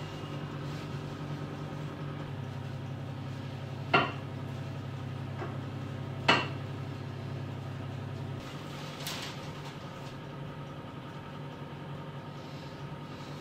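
Two sharp clinks about two seconds apart, a utensil knocking against a bowl, and a softer knock a little later, over a steady low hum that shifts slightly and then drops away.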